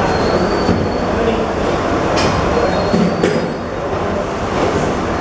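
Packaging rewinder machine running, a steady loud mechanical noise with a faint high whine that comes and goes. Two short sharp clicks about two and three seconds in.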